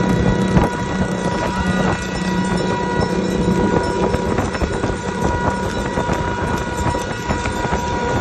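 Motorcycle engines running at speed in a group, mixed with road noise, with a steady high tone running through it.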